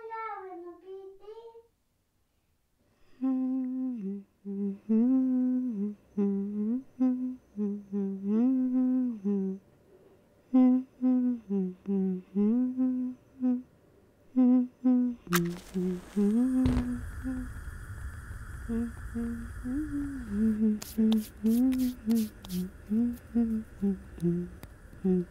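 A woman humming a slow, simple tune, note by note with short breaks between phrases. About fifteen seconds in, a steady hiss comes in beneath the humming, and a few sharp clicks follow.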